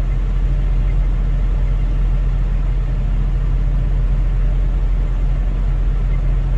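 1999 Range Rover P38's V8 engine idling with the vehicle stopped, heard from inside the cabin as a steady low hum.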